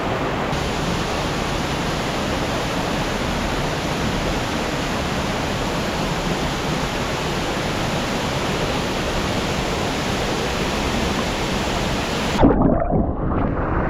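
Steady rushing of a waterfall, loud and even. About twelve seconds in, it gives way suddenly to a thump and a duller, muffled rumble.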